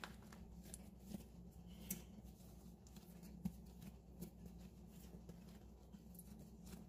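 Near silence: faint soft taps and handling noises as hands press and fold bread dough over plastic wrap, over a low steady hum.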